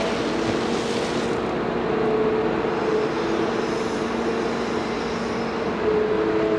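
Heavy construction machine's diesel engine running steadily, with a hiss over it during the first second or so.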